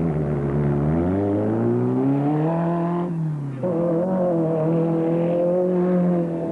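Off-road race car engine accelerating, its pitch rising for a few seconds, dropping sharply at a gear change about three seconds in, then pulling again at a fairly steady pitch.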